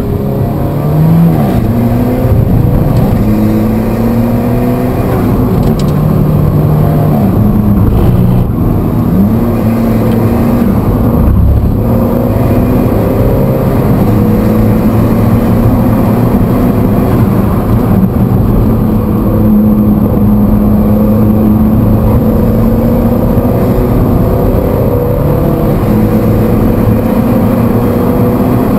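Stock Alfa Romeo 4C's mid-mounted 1750 cc turbocharged four-cylinder engine, heard from inside the cabin while driven hard. Its pitch climbs under acceleration and drops back again and again through gear changes and braking.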